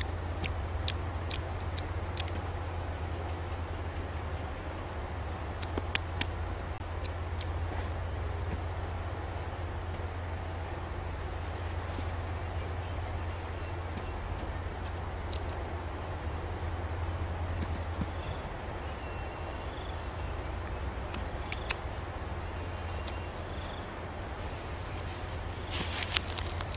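Steady, high-pitched chorus of insects over a constant low hum, with a few scattered sharp clicks and a short cluster of them near the end.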